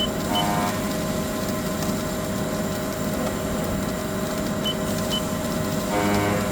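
Haas ST-35 CNC lathe running with a steady machine hum, with two pairs of short high beeps, one near the start and one about three-quarters of the way in.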